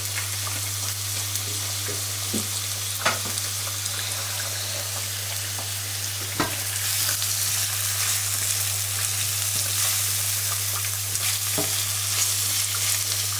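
Sliced mushrooms and onion sizzling in a nonstick frying pan. The sizzle grows louder about halfway through, with a few sharp knocks, and a silicone spatula stirs them near the end.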